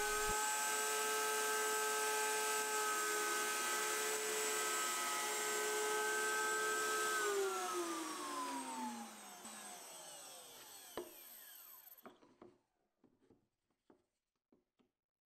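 Table-mounted router spinning at full speed with a steady high whine as a plywood board is fed past the bit to thin a rabbeted tongue, then winding down, its pitch falling, after being switched off about seven seconds in. Near the end come a few light wooden knocks.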